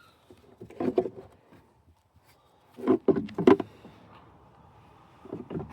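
Clicks and knocks of car parts being handled, in three short clusters: about a second in, around the middle, and near the end.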